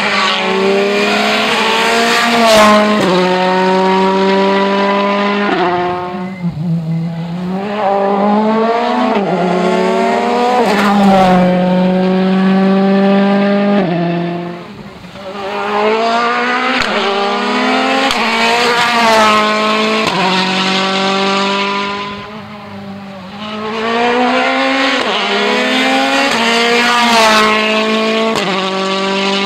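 World Rally Car engines, 1.6-litre turbocharged four-cylinders, accelerating hard, their pitch climbing and dropping back with each quick upshift. Four runs follow one another, with a short dip in loudness between each.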